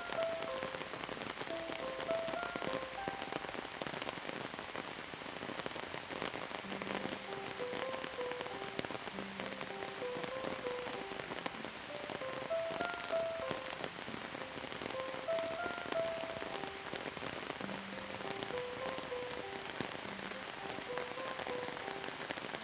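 Steady rain falling, with many small drops pattering, under a soft, slow melody of single held notes.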